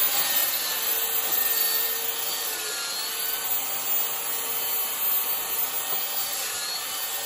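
Corded electric belt sander running steadily against wooden fence boards, sanding them. It makes a constant rushing noise with a faint steady hum under it.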